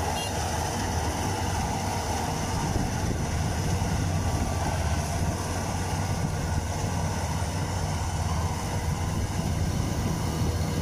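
Tracked rice combine harvester running steadily while it cuts and threshes standing rice, its diesel engine droning evenly.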